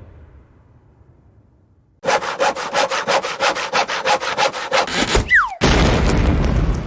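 Cartoon sawing sound effect: a hand saw cutting wood with quick, rapid back-and-forth strokes for about three seconds. It is followed by a short falling whistle and a loud crash that fades away.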